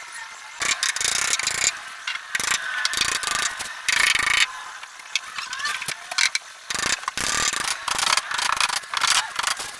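Irregular mechanical clicking and rattling in quick, uneven bursts, like hand tools or hardware being worked.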